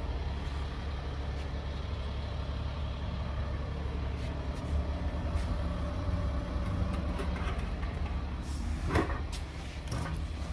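Steady low rumble of street traffic in the background, with a couple of sharp knocks near the end.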